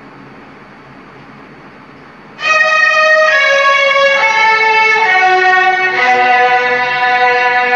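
A steady hiss, then about two and a half seconds in, a Hindi film song's instrumental intro starts: a violin plays slow held notes that step downward, with deeper accompanying notes joining near the end.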